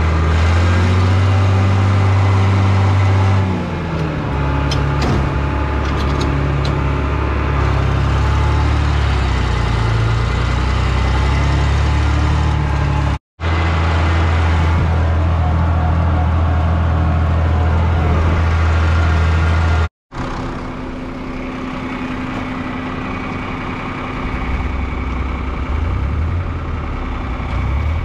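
Tractor engine running steadily under way, its pitch dropping a few seconds in as it slows. After two abrupt cuts it runs more quietly near the end.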